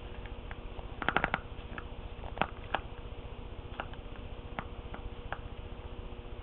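Plastic spring clamp squeezed and released over and over in one hand, its handles and jaws clicking: a quick cluster of clicks about a second in, then single clicks every half second to second.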